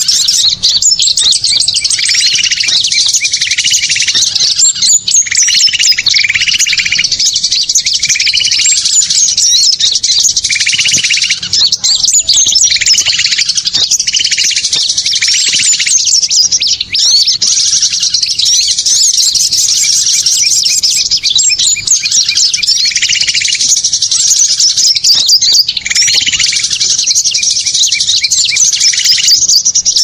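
Bird-lure recording of a noisy flock of small songbirds: dense, continuous high-pitched chirping and twittering, with a lower chirping phrase repeating about once a second.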